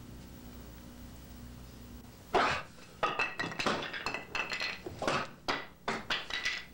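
Bare feet and hands striking handheld wooden boards. One hard thunk comes about two seconds in, then a quick run of a dozen or so knocks and thuds, some with a short ring, over the next few seconds.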